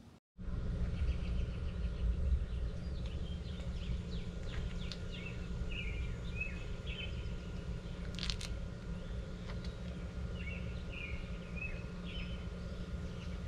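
Small birds chirping in short repeated calls over a steady low background rumble, with a faint steady high tone throughout. A single sharp click about eight seconds in.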